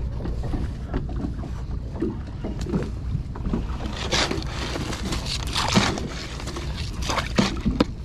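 Water slapping and splashing against the side of a small anchored fishing boat over a steady low rumble, with scattered small clicks and knocks. The strongest splashes come about halfway through and again near the end.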